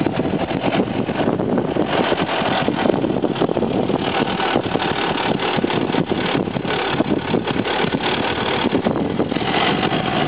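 Wind buffeting the microphone of a camera riding along on a moving road bicycle: a loud, rough rush that flutters constantly.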